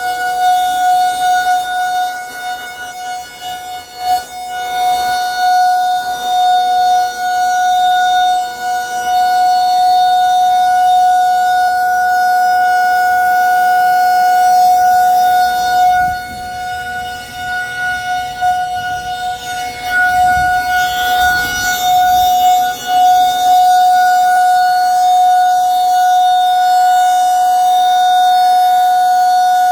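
Federal Signal 2001-SRN rotating outdoor warning siren sounding its steady alert tone during a weekly test. The pitch holds constant while the loudness swells and dips as the siren turns.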